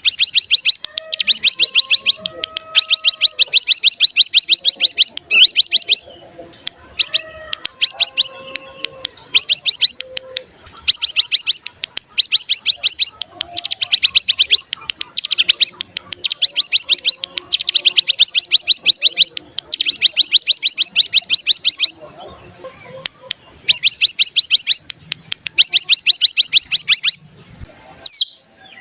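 Ciblek gunung (cigun, a mountain prinia) singing its 'ngebren' song: fast, high trills of rapidly repeated notes, in bursts of one to three seconds with short gaps between them, over a thin steady high whistle.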